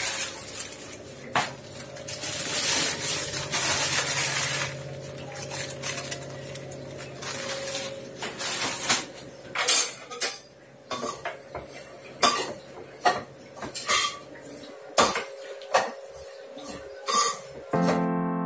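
Stainless-steel kitchen utensils clinking and knocking as plates and pans are handled, with many sharp knocks in the second half over a steady low hum. Music comes in near the end.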